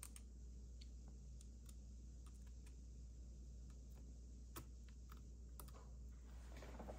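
Faint, irregular small clicks of a small Torx screwdriver turning a screw into a thermostat's circuit board, over a low steady hum.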